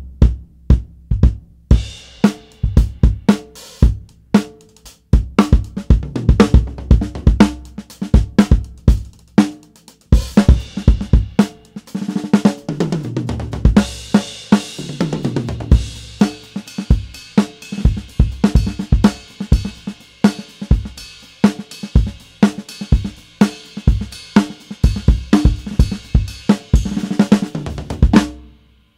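Drum kit played with rods (bundled dowel sticks): a steady groove of kick, snare, hi-hat and cymbals, with a fill falling down the toms about halfway through. The cymbals ring on more after the fill, and the playing stops just before the end.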